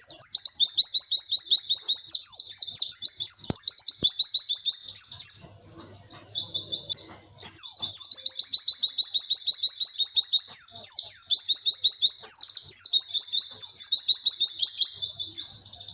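White-eye (pleci) singing its 'witwit' song: long, rapid runs of repeated high, clear notes. The song drops out briefly around the middle and then starts again.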